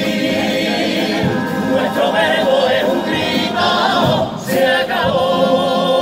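Male vocal group singing in harmony, several voices holding long notes together between sung lines.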